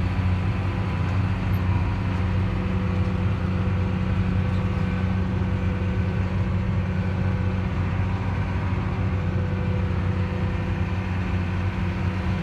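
Tractor engine running steadily, a constant low drone with no change in pitch.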